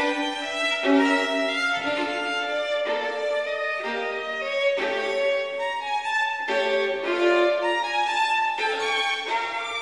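Background music led by a violin playing a melody.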